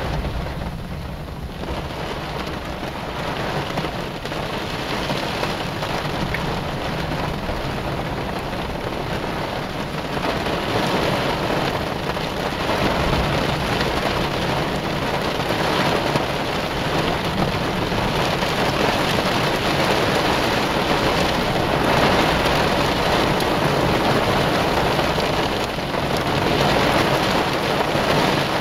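Heavy thunderstorm rain falling steadily, growing louder about ten seconds in, with a low rumble of thunder underneath.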